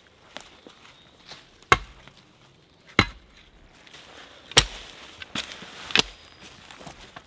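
Mattocks chopping into woodland soil: five sharp strikes, unevenly spaced about a second apart, the loudest about halfway through.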